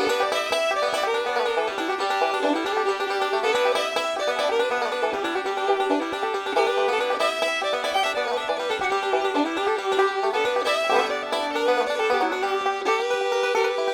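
Background music led by a picked banjo, in a bluegrass style.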